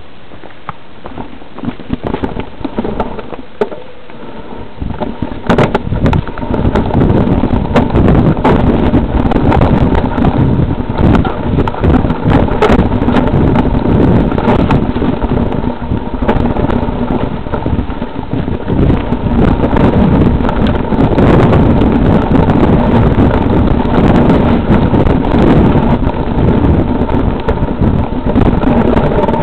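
Riding noise on a rough, leaf-covered forest trail: wind buffeting the camera microphone, with rumble, rattling and scattered knocks. The first few seconds are quieter, and it turns loud and stays loud from about five seconds in.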